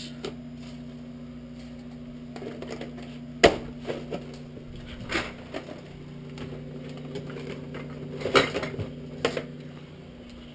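Kitchen handling sounds as a refrigerator is opened and an item taken out and the door shut: a few sharp clicks and knocks, the loudest about three and a half seconds in and a cluster around eight seconds, over a steady low hum.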